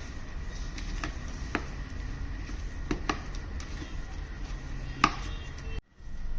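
A kitchen utensil knocking and scraping against a bowl while a soya and mashed-potato mixture is mashed and mixed: a handful of irregular single knocks over a steady low hum. The sound cuts out briefly near the end.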